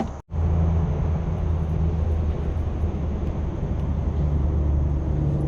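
A motor running steadily with a low, even hum, starting just after a brief cut.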